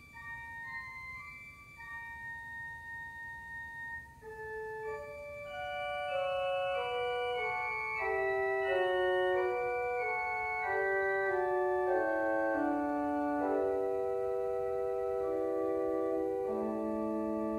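Organ playing a prelude in held, steady notes: a thin, high melody line at first, then fuller sustained chords that swell louder about five or six seconds in.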